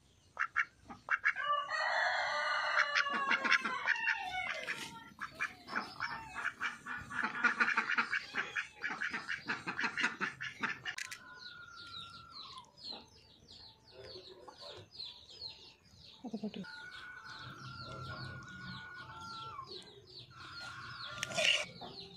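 Poultry calling: chickens clucking and crowing, with a duck among them. The calls are loudest in the first half and give way to quieter, rapid high chirping.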